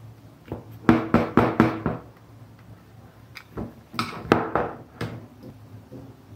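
Hard plastic knocks and clicks from a plug-in relay and its socket base and a screwdriver being handled on a tabletop while wiring terminals. They come in two quick bursts, one about a second in and another about four seconds in.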